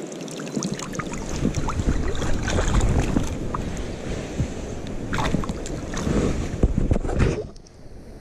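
Shallow river water splashing and sloshing around hands and a steelhead held in the current, with many small sharp splashes and a low rumble on the microphone. It drops off suddenly about seven and a half seconds in.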